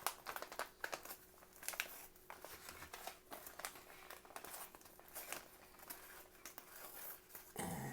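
Faint crinkling and crackling of a freeze-dried meal pouch as it is torn and opened, an irregular stream of short crackles and clicks.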